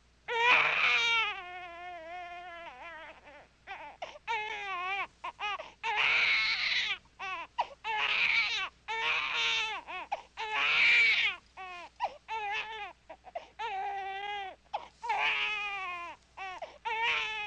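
A newborn baby crying: a string of wailing cries, each a second or so long, wavering up and down in pitch, starting suddenly a moment in.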